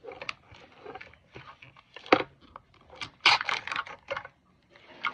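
Paper wrapper crinkling and tearing as it is unwrapped by hand, in irregular crackles and rustles, with a sharp crack about two seconds in and the densest crinkling a second later.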